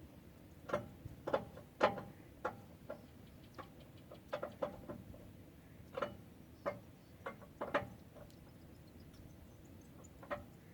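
Irregular sharp metallic clicks and knocks of a lug wrench being worked around the lug nuts on a pickup's wheel, loosening them. The louder knocks come about a second in and again near the end.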